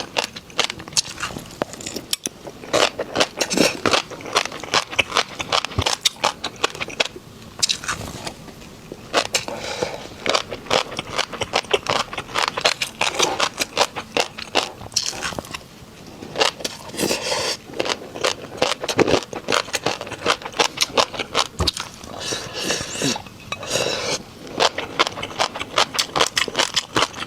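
Close-miked crunching and chewing of crunchy snacks: dense runs of sharp cracks as the food is bitten and chewed, with short pauses between mouthfuls.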